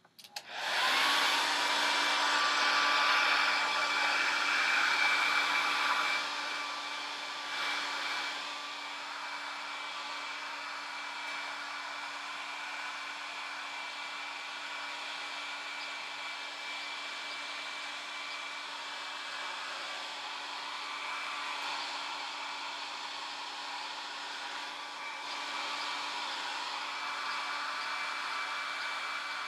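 A small electric motor with a fan switching on, its whine rising for about a second as it spins up, then running steadily with a whirring hiss and a steady hum. It is louder for the first six seconds, then settles a little quieter.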